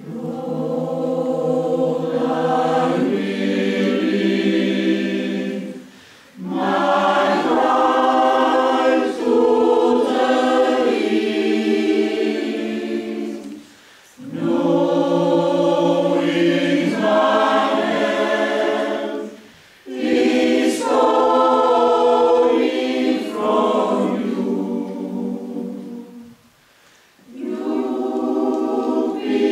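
Mixed choir of men's and women's voices singing slow sustained chords, in four long phrases separated by brief pauses for breath.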